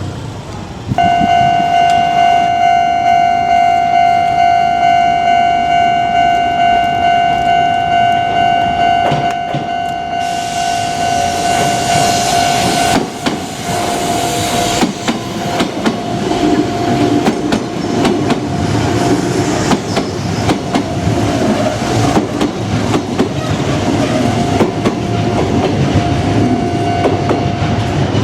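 A Japanese level-crossing alarm starts about a second in: a steady electronic bell tone pulsing at an even beat. About ten seconds in a Kintetsu electric train arrives and runs through the crossing, wheels clattering on the rails, while the alarm carries on more faintly beneath it.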